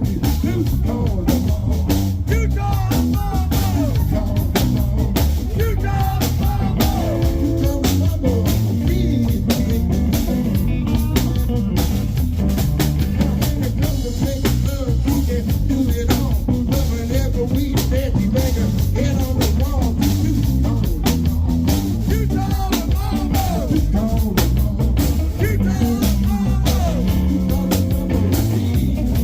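Live band playing a rock song with guitar, drum kit and sung vocals.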